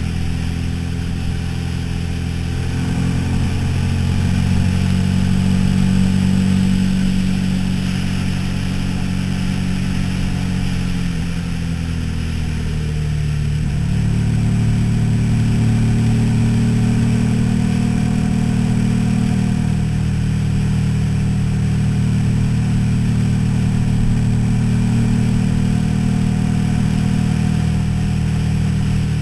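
Suzuki SV V-twin motorcycle engine pulling along a winding road. Its pitch rises early on, drops about halfway through as the throttle comes off, then picks up again and holds steady. Wind rushes over the bike-mounted camera's microphone throughout.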